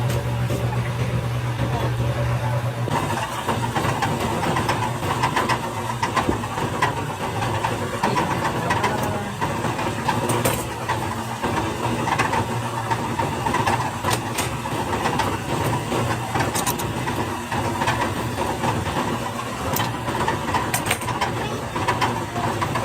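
Workshop machinery running with a steady hum, and scattered clicks and knocks on top. The sound changes about three seconds in.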